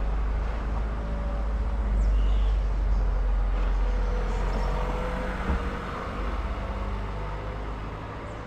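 Low rumble of an engine running nearby, with a faint steady hum above it. It grows louder about two seconds in and slowly fades toward the end.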